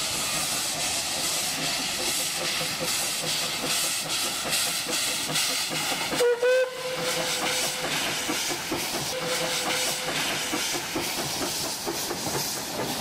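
Puffing Billy steam locomotive hissing steam. Its steam whistle sounds about six seconds in, rising briefly into a steady note held for about two seconds, then sounds again for about a second near the ten-second mark.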